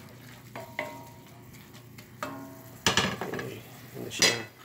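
Sliced onions sizzling in a cast-iron skillet while a wooden spatula stirs and scrapes them. The hiss is steady, broken by several sharp scrapes, the loudest just before the end. It is the alcohol cooking off in the reduction stage as the pan dries out.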